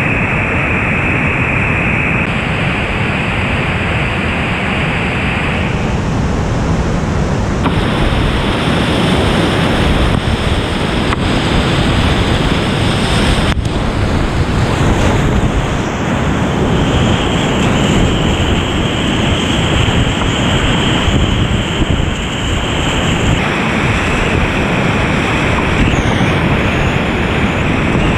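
Whitewater rapids of a boulder-strewn mountain creek rushing, loud and steady and close to the microphone, the tone of the rush shifting abruptly a few times.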